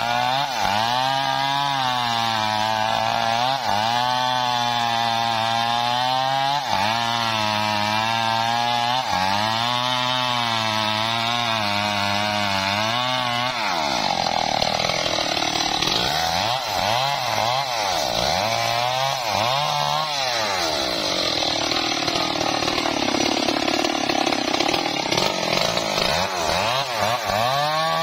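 Stihl MS 381 two-stroke chainsaw running at high revs while cutting into the base of a tree trunk. The engine pitch sags and recovers over and over as the chain bites into the wood, swinging up and down more deeply about halfway through.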